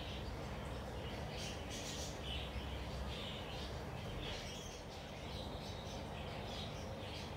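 Ambient background: irregular short chirps, like small birds, over a steady low hum.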